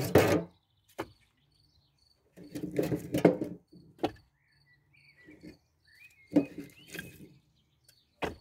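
Firewood logs knocked and shifted as they are stacked, in several short clattering bursts, the loudest about two and a half to three and a half seconds in. A cricket chirps steadily underneath.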